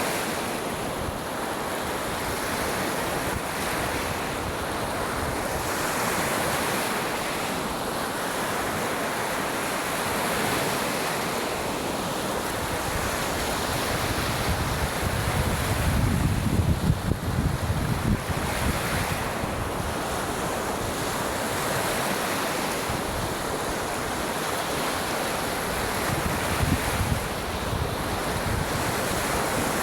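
Waves breaking and washing onto a beach in a steady surf. Wind buffets the microphone in gusts, loudest about halfway through and again near the end.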